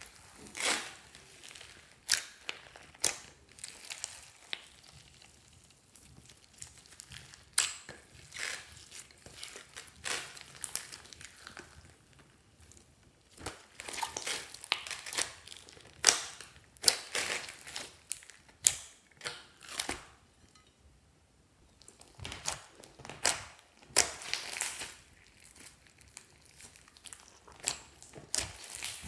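Hands squeezing and kneading a large lump of slime studded with foam beads and glitter: irregular sticky pops and crackles as it is squished and folded, with a couple of short lulls.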